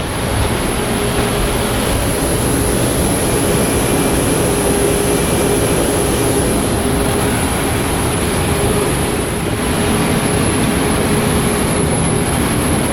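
Steady, loud rushing drone of a parked airliner's ground machinery, with a faint steady hum running through it.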